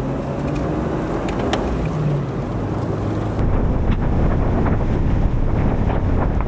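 Vehicle engine humming steadily with road noise, then from about three and a half seconds in, wind buffeting the microphone.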